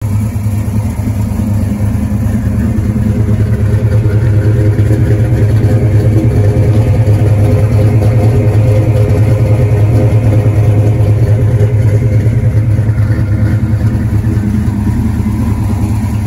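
Naturally aspirated 525 hp small-block V8 of a Fox-body Ford Mustang idling loudly and steadily, heard close to its exhaust.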